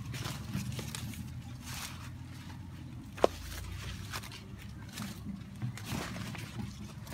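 Footsteps and the rustle of maize leaves brushed aside by someone walking through a field of storm-flattened corn, over a low steady rumble. One sharp click stands out about three seconds in.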